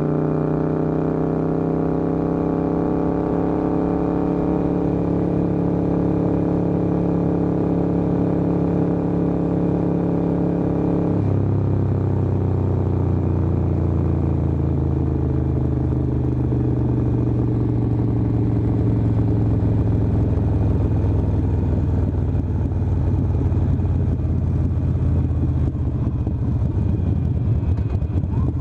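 Harley-Davidson Sportster 1200's air-cooled V-twin, built to Stage IV, running at speed on the road with wind and road noise. Its pitch eases down and then drops sharply about eleven seconds in, after which it runs steadily at the lower pitch.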